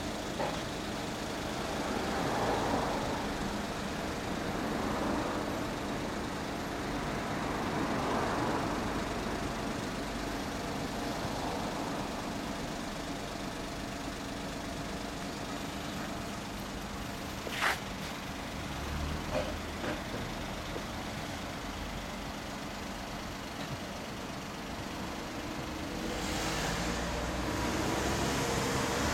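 A 1974 Kawasaki Z1A's air-cooled inline-four engine idling steadily through a Yoshimura four-into-one exhaust. There is one sharp click about two-thirds of the way through.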